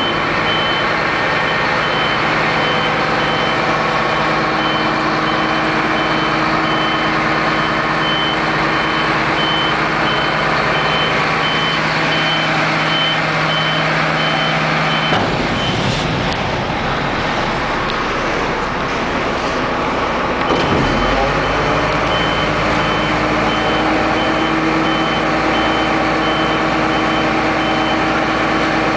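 DAF CF refuse truck's diesel engine running steadily, with a warning beeper sounding an even repeating high beep. Midway the beeping stops for about five seconds amid a rushing noise, then resumes as the engine settles to a deeper note.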